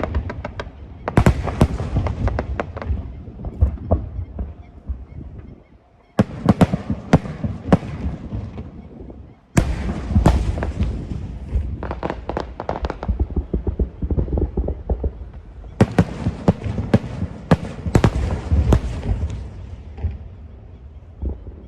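Fireworks going off in rapid volleys of sharp bangs and crackle. There are short lulls about six and nine and a half seconds in, and the bangs thin out near the end.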